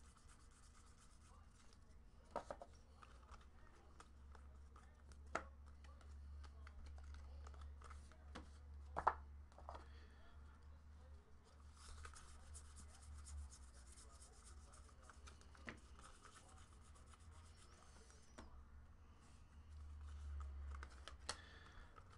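Faint scratching and rustling of trading cards being flipped through and slid across each other by hand, with a few sharp clicks as cards snap against the stack, over a low steady hum.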